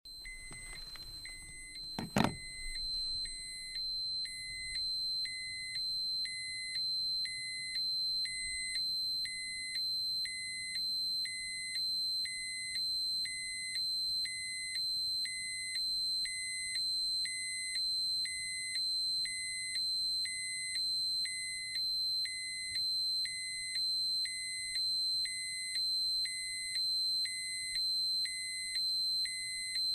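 Radiation dosimeter alarm sounding: a steady high tone with a lower beep pulsing about once a second. A sharp click about two seconds in is the loudest sound, just as the beeping starts.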